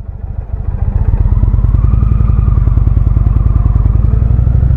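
2019 Indian Springfield's V-twin engine running while the motorcycle cruises, a steady low throb of rapid, evenly spaced firing pulses that fades in over the first second.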